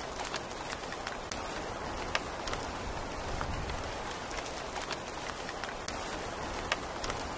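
Heavy rain falling, a steady hiss with scattered sharp taps of drops.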